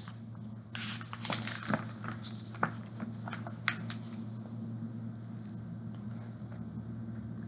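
Pages of a hardcover picture book being turned and the book handled close to the microphone: scattered paper rustles and small taps over the first few seconds, with a steady low hum underneath throughout.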